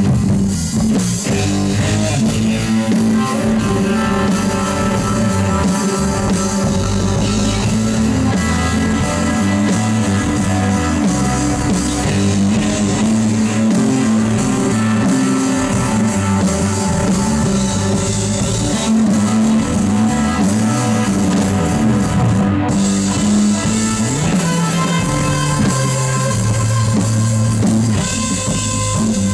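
Live electric blues band playing an instrumental passage: electric guitar over a bass guitar line and a drum kit, loud and steady throughout.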